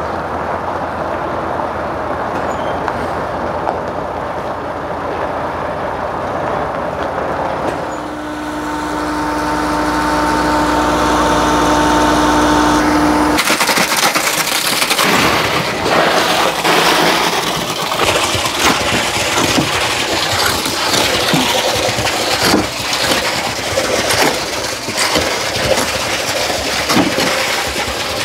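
Engines of a concrete lorry and a line pump running steadily, joined about eight seconds in by a steady whine as the pump works. After a sudden change, concrete pours from the pump hose into a foundation trench, with many irregular clicks and knocks.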